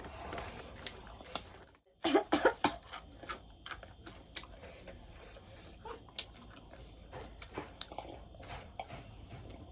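Close-up eating sounds of chewing and biting food: a run of sharp wet clicks and smacks, loudest about two seconds in.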